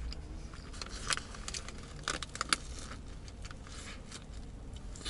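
Paper burger wrapper rustling and crinkling as a burger is handled and lifted for a bite, with a few sharp crackles about one second and two to two and a half seconds in, over a steady low hum.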